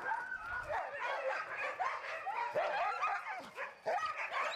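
A kennel full of huskies barking and yelping together, many high calls rising and falling over one another.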